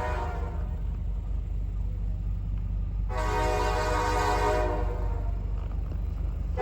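Diesel freight locomotive's multi-chime air horn sounding in blasts: the end of one blast fades out at the start, a second blast of about a second and a half comes near the middle, and the next begins right at the end. The locomotive's diesel engines rumble steadily underneath.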